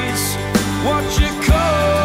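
Background music: a song with a gliding melody over steady bass and drum hits.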